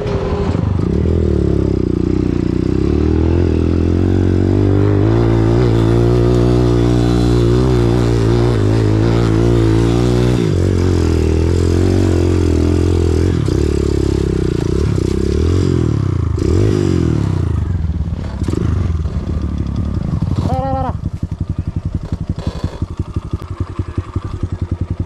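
Dirt bike engine running hard under load, its pitch rising and falling with the throttle, then settling to a slower, lumpy idle with distinct firing pulses in the last several seconds.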